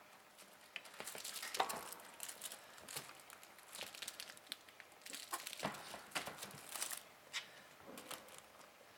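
Kittens at play, making irregular rustles and light clicks that come in uneven clusters, with the busiest stretch a little over a second in.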